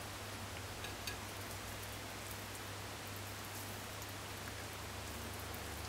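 Steady rain falling, heard as an even hiss, over a low steady hum, with a couple of faint clicks about a second in.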